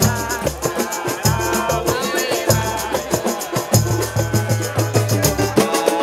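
Live samba from a roda de samba group: a samba banjo and a large tantã hand drum over a quick, steady percussion beat, with singing.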